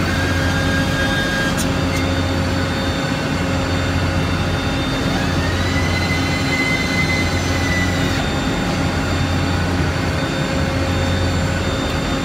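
Hot coil-spring winding machine running: a loud steady industrial hum and motor whine as a red-hot steel bar is wound onto a rotating mandrel. A higher whine rises in pitch about five seconds in, holds, and stops about three seconds later.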